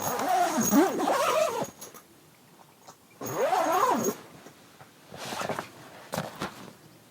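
German shorthaired pointer giving two drawn-out whining calls that bend up and down in pitch, the first about a second and a half long and the second shorter, followed by a few fainter sounds.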